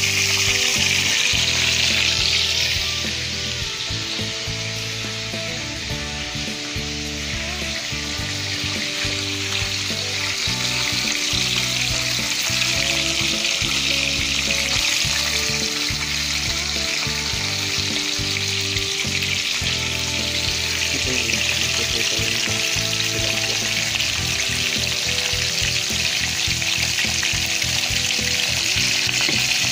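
Fish frying in hot oil in a wok: a steady, dense sizzle that eases a little a few seconds in and then builds again. Background music plays underneath.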